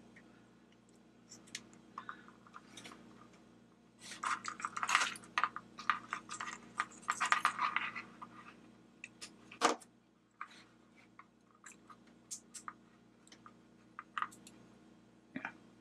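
Hands handling small flashlight parts (wires, a push switch, a 9-volt battery and the plastic LED head) on a work mat: rustling and scraping with light clicks, and one sharper click about ten seconds in.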